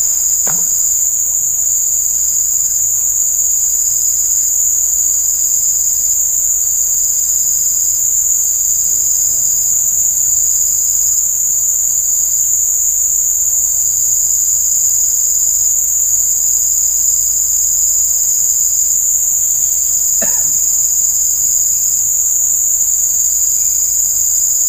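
Loud, steady, high-pitched shrilling of a chorus of insects, with a second, lower shrill that pulses on and off every second or so.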